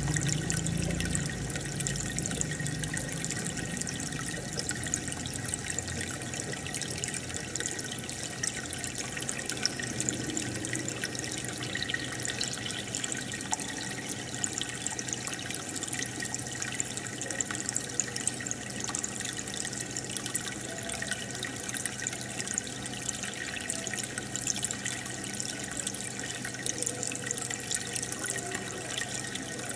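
Aquarium water bubbling and trickling steadily as air bubbles rise through the tank, with a faint low hum underneath.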